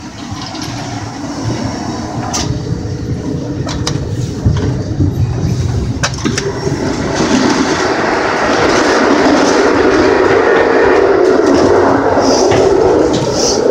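Passenger train running, its steady wheel and rail noise growing louder about halfway through as it is heard from the vestibule between cars. A few sharp knocks come in the first half.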